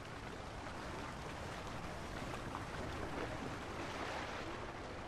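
Steady, even rush of water along a shoreline.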